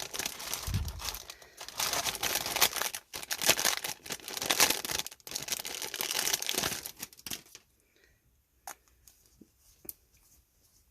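Packaging crinkling and tearing as items are unwrapped by hand, in dense rustling bursts for about seven and a half seconds, then a few light clicks and taps.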